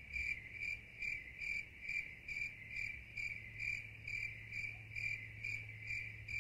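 Cricket chirping in a steady, even rhythm, a little over two chirps a second, with a low steady hum underneath.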